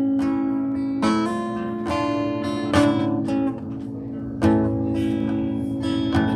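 Acoustic guitar playing a slow chord intro: chords strummed about once a second and left to ring.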